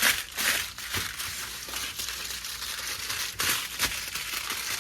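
Aluminium foil being folded and crimped tightly around a fish packet: repeated crinkling and crumpling, loudest just after the start and again about three and a half seconds in.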